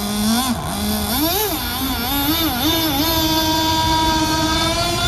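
Radio-controlled model speedboat's motor, its pitch swinging up and down with the throttle for the first few seconds, then settling into a steady whine that climbs slowly as the boat runs at speed.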